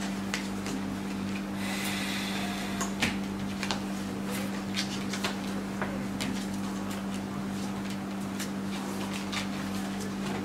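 Playing cards being handled and laid down on a tabletop: a scatter of light clicks and taps, with a short rustle about two seconds in, over a steady low hum.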